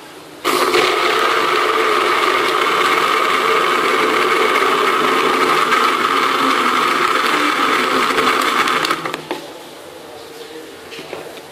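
Electric countertop blender running, blending mango, milk, sugar and ice into a milkshake. It switches on sharply about half a second in, runs at a steady, even pitch for about eight seconds, then is switched off and winds down.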